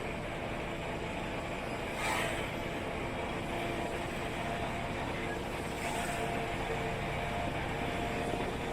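A road vehicle on the move in city traffic: steady engine and road rumble with a faint whine. Brief hissing swells come about two seconds and six seconds in.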